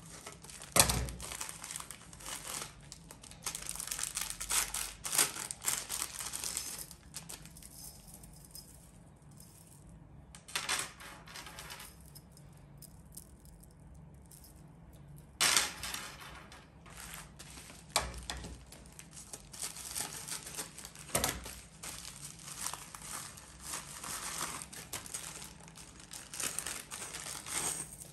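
Plastic packaging crinkling and being snipped with scissors, and chunky chain bag straps clinking and rattling as they are unwrapped and handled. A few sharp knocks come in between.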